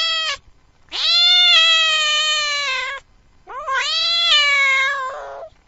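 Cat meowing: the end of one call, then two long drawn-out meows of about two seconds each. The second meow rises in pitch at its start and turns rough at its end.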